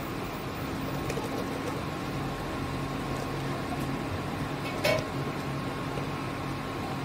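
Chopped vegetables tipped into a pressure cooker of frying masala over a steady hum and hiss, with one short knock about five seconds in as whole potatoes drop into the pot.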